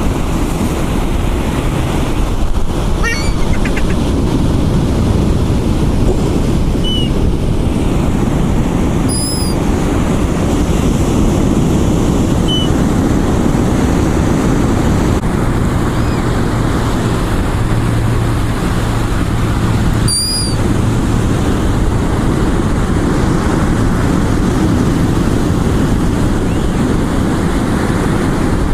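Steady rush of ocean surf and wind on the microphone. A few brief high chirps come through, the clearest about nine and twenty seconds in.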